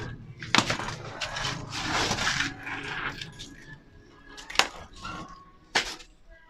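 Small metal parts clinking and knocking, with a few sharp taps and a scraping rustle about two seconds in.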